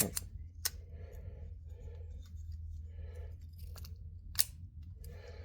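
Repeated short scraping strokes of hand work on a pipe, roughly one every 0.7 s, as it is bored out to make an undersized fitting go on, with a couple of sharp clicks and a steady low hum underneath.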